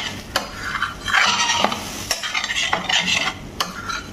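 A metal spoon stirring chicken in tomato gravy in a stainless steel pan, scraping around the pan with a few sharp clinks against its side, while the gravy sizzles.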